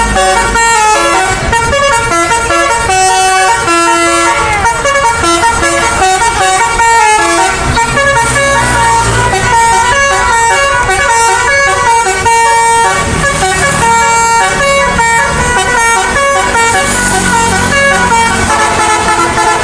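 A bus's 'basuri' telolet horn, a multi-trumpet musical air horn, playing a fast tune of short, stepped horn notes without a break. A low engine rumble runs underneath.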